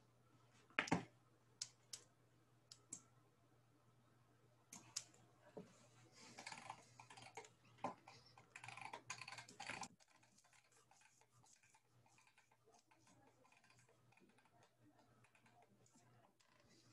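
Computer keyboard clicks. A few single clicks come first, then a quick run of clattering keystrokes from about five to ten seconds in, then near silence.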